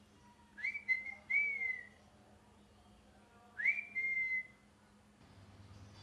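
Ringneck parrot giving three short whistled calls, each sweeping sharply up then holding a level, slightly falling tone; two come close together near the start and a third a couple of seconds later.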